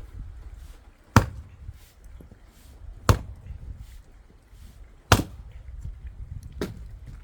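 An axe splitting firewood: four hard strikes into the wood, about two seconds apart, the last one weaker.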